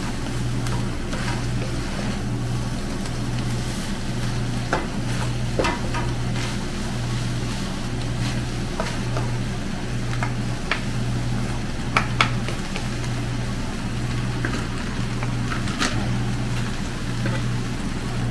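Stir-fried noodles and vegetables sizzling in a nonstick pan while being tossed with a wooden spatula, with scattered sharp taps and scrapes of the spatula against the pan over a steady low hum.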